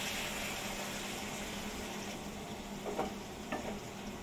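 Macaroni sizzling in a hot frying pan after a splash of hot water, a steady hiss that slowly fades. A wooden spatula stirs the pasta and knocks against the pan twice near the end.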